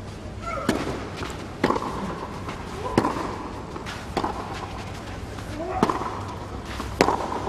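Tennis rally: a ball struck back and forth by racquets, about six sharp hits roughly a second and a quarter apart.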